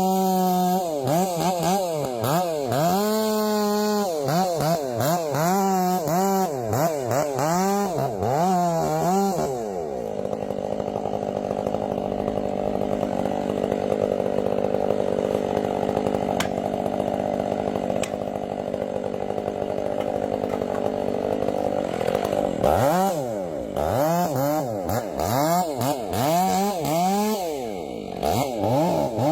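Chainsaw revving up and down over and over, then held at a steady high speed for about twelve seconds while it cuts through wood, then revving up and down again near the end.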